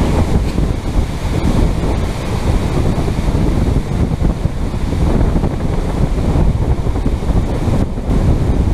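Gusty wind from an approaching thunderstorm rushing and buffeting the microphone, a loud continuous rumble that swells and eases.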